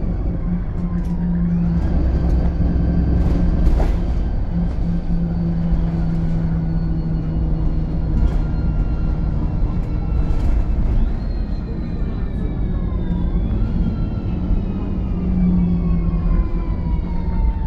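VDL SB200 Wright Pulsar 2 bus running under way, its engine drone carrying the high vacuum-cleaner-like whine that earns this type the nickname "Hoover". The whine jumps up in pitch and then slowly falls away several times, with a few sharp knocks and rattles in between.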